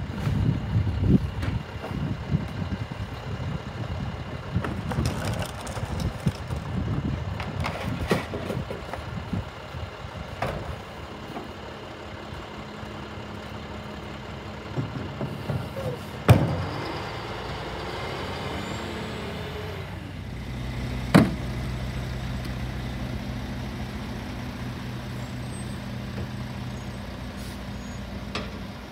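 Rear-loading garbage truck's diesel engine running at the curb while bins are tipped into its hopper, with repeated clatter and knocks of bins and their contents. Later the clatter thins to a steady engine hum broken by a couple of single sharp bangs.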